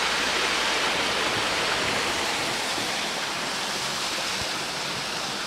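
Water rushing steadily at a canal lock, a continuous hiss of falling water that slowly gets quieter.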